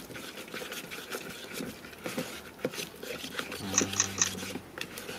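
Spatula stirring a thick, thickener-laden resin mortar mix in a plastic cup, giving irregular scrapes and small clicks.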